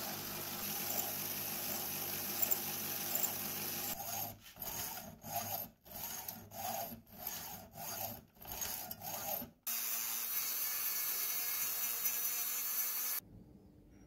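Hand tool worked back and forth on a metal rod, filing or sawing it, in about ten evenly paced strokes. Steady rushing workshop noise before and after the strokes cuts off abruptly near the end.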